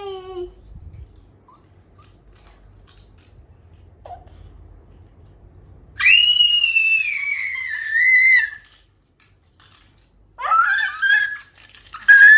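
A young child's high-pitched squeals: one long squeal about six seconds in that slides down in pitch, then two shorter squeals near the end.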